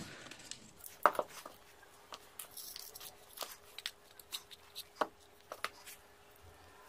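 Irregular light clicks and taps of a Worx power-tool battery pack's plastic housing and cells being handled during reassembly, with the sharpest clicks about a second in and about five seconds in.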